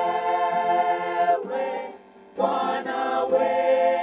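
A choir singing long held chords without clear words, in two sustained phrases with a brief dip about two seconds in.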